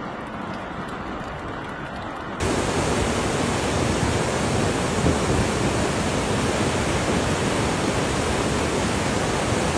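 Rushing floodwater, a steady noise with no distinct events. About two and a half seconds in it cuts abruptly to a louder, brighter rush of water.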